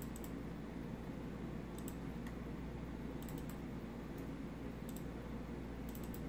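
Computer mouse clicking a handful of times, several in quick pairs as video files are double-clicked open, over a steady low hum.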